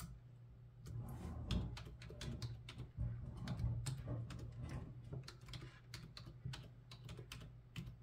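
Typing on a computer keyboard: a quick, irregular run of key clicks starting about a second in, over a low steady hum.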